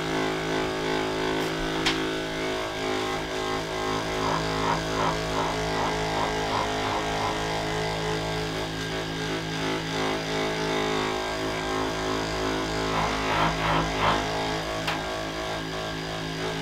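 Handheld percussion massage gun running steadily against a patient's lower leg, its motor giving a continuous buzzing hum at a constant pitch.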